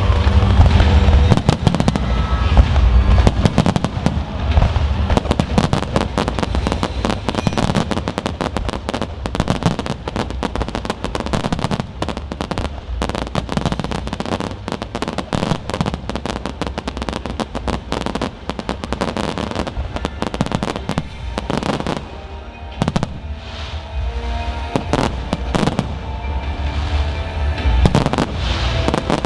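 Fireworks going off, with a dense, rapid run of sharp crackling reports and bursts. Music with a heavy bass plays underneath.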